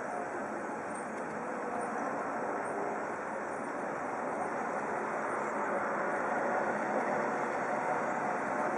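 Steady street noise of traffic and running vehicle engines, getting a little louder over the last few seconds.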